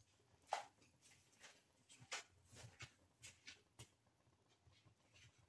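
Faint, scattered small pops and ticks at uneven intervals: froth bubbles bursting on the surface of milk tea in a pan just after the milk is poured in. The pops thin out after about four seconds.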